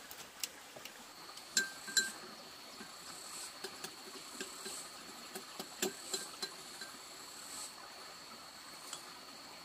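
Spoon and chopsticks clinking and scraping against a metal pot and a bowl as noodles are served, with two sharp ringing clinks about a second and a half in. A steady high-pitched insect drone starts about a second in and runs underneath.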